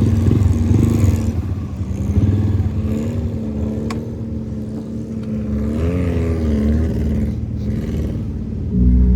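Off-road vehicle engine running, its pitch wavering up and down as it revs, with a sharp knock about four seconds in and the engine growing louder near the end.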